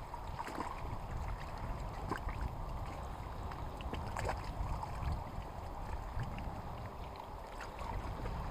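Wind buffeting the microphone in a snowstorm, with small waves lapping at the river bank and faint scattered clicks.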